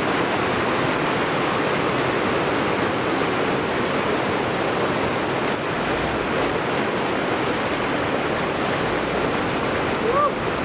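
A river rushing steadily. Near the end comes a brief, voice-like call that rises and falls in pitch.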